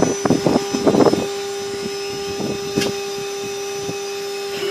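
Mini CNC router's spindle running with a steady whine while its end mill cuts a block of EVA foam, with uneven rough cutting noise over the first second and a couple of brief rasps later on.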